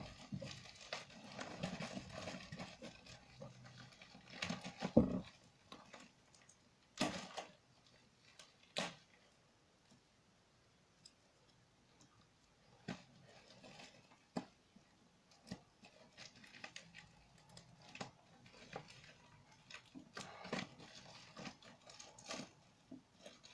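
Faint rustling and handling of packaging while an RGB LED strip kit is unpacked. There are a few sharp knocks around the fifth to ninth second, a short near-quiet spell, then scattered rustles and clicks.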